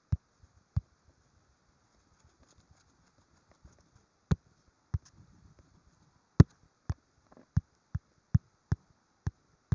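Sharp, separate taps on a hard surface. They come scattered at first, then in a fairly steady run of about two to three a second from about six seconds in.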